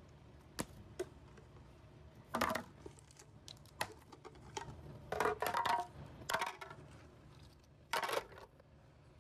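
Hard plastic toy pieces being handled: scattered clicks, clinks and short clattering knocks every second or two, the busiest cluster a little past the middle.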